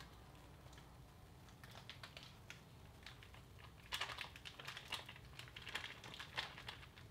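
Paper butter wrapper crinkling as it is handled and peeled back from a block of butter: faint, irregular crackles that become busier about four seconds in.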